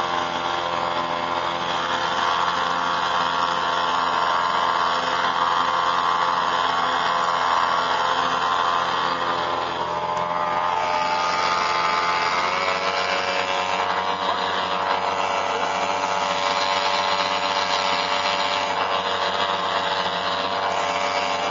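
Twin small air-cooled two-stroke Gamefisher outboard motors running under way with a steady, buzzy drone. About twelve seconds in, the pitch shifts as the revs change.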